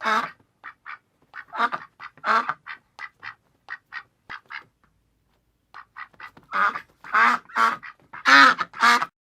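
Duck quacking in a series of short quacks, some loud and some soft. The quacks break off for about a second around the middle, then come back in a louder run near the end.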